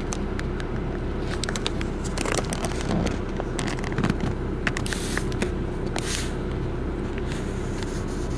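Steady low rumble of a car cabin, with a run of light clicks and scrapes through the middle few seconds.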